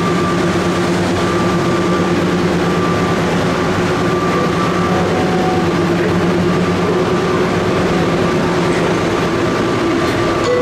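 Interior sound of the Atlanta airport Plane Train, a rubber-tyred automated people-mover car, running along its guideway: a loud, steady hum of running noise with several held tones from the drive.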